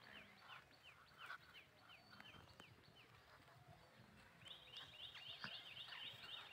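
Faint, quick high-pitched animal chirps repeating about three times a second, turning into a faster, steadier run about four and a half seconds in.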